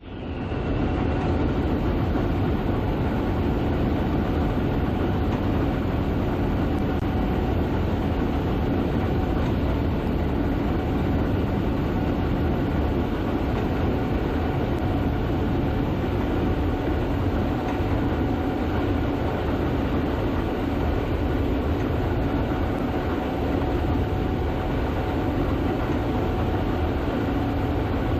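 Gleaner S98 combine running steadily while harvesting soybeans: a constant mechanical rumble with a steady hum over it.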